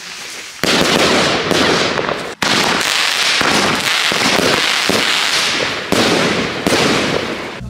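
Firework rockets launching and bursting in a dense, loud run of bangs and crackling. It starts abruptly about half a second in, breaks off for a moment about two and a half seconds in, and has another loud onset around six seconds.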